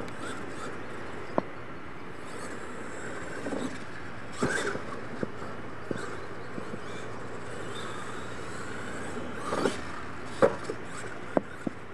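Radio-controlled monster truck crashing and tumbling on a dirt track: scattered sharp knocks and thuds over a steady hiss, the loudest about ten and a half seconds in.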